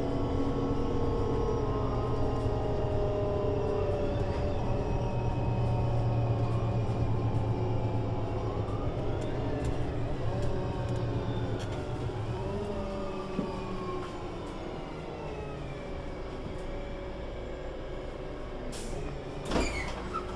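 Solaris Urbino 18 IV articulated bus with its DAF diesel engine and Voith DIWA 6 automatic gearbox running steadily, then slowing: about twelve seconds in it goes quieter and several whining tones fall slowly in pitch as the bus decelerates. Near the end, a brief sharp noise.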